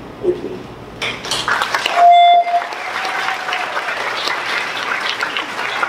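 Audience applauding, starting about a second in. About two seconds in, a brief loud electronic beep-like tone cuts through the clapping.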